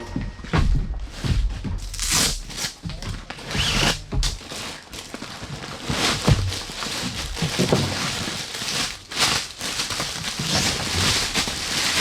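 Crinkling and rustling of packaging being handled and torn open, with many small crackles and clicks.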